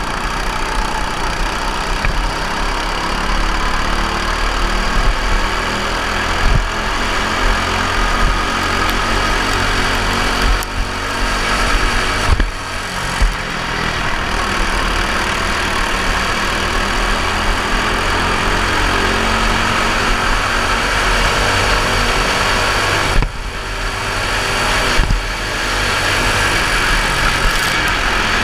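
Four-stroke racing kart engine running hard, heard from on board. Its pitch rises and falls with the throttle, and it drops sharply as the driver lifts off about twelve seconds in and again about 23 seconds in.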